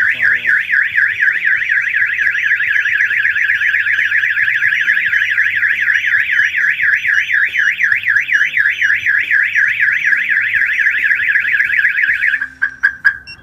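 Autopage car alarm siren sounding a loud, rapid up-and-down warble after being tripped by tampering at the wheels, as if someone were taking the rims. About twelve seconds in it breaks into a few short chirps and stops.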